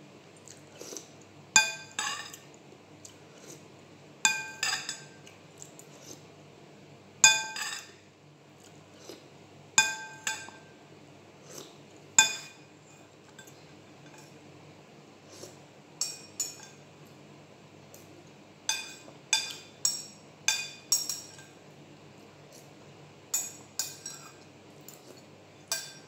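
Metal spoon clinking against a white ceramic soup bowl: sharp, ringing clinks a few seconds apart, coming in quicker runs later on as the last of the soup is scooped from the bowl.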